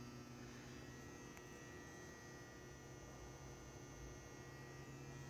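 Faint, steady electrical hum, close to near silence.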